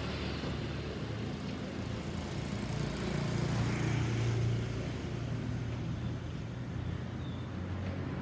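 Road traffic: motor vehicle engines running with a steady low rumble and tyre and road noise.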